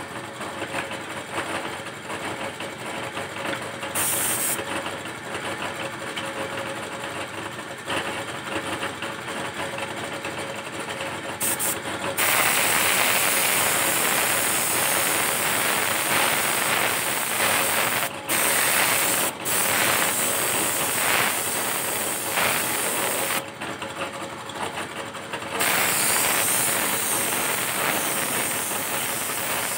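Small air compressor running steadily under an airbrush spraying paint. The airbrush gives a short puff of hiss about four seconds in, then from about twelve seconds sprays in long hissing passes with brief breaks and a longer pause near twenty-four seconds, laying the black base coat on a test panel.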